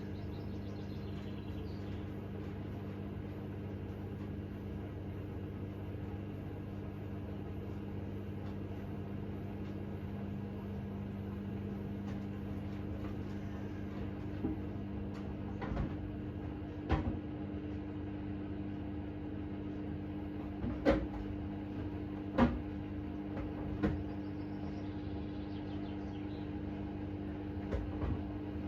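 Hoover H-Wash 600 washing machine running, a steady motor hum with a few sharp knocks in the second half.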